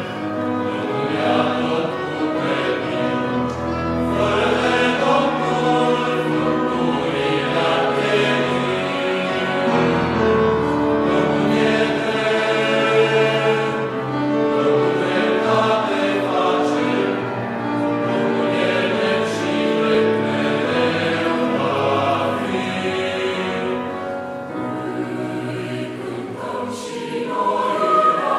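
Choir singing in several parts, with long held chords and low bass notes underneath.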